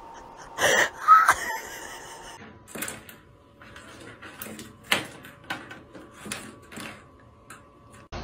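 A cat pawing and batting at a door and a toy caught in the gap beneath it: a run of light knocks and scrapes against the door, spaced irregularly, after a louder clatter about a second in.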